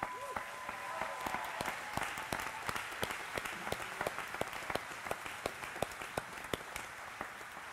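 Audience applauding, starting suddenly and carrying on steadily, with cheering over the first couple of seconds.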